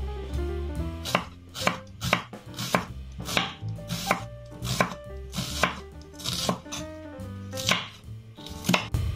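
Chef's knife chopping onion on a wooden cutting board: sharp, slightly uneven knife strikes on the wood, about two a second.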